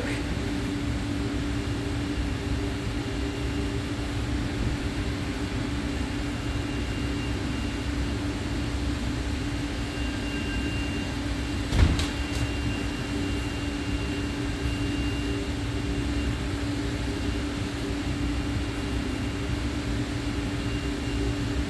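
CNC machine running: a steady mechanical drone with a constant hum, broken by one sharp knock about twelve seconds in.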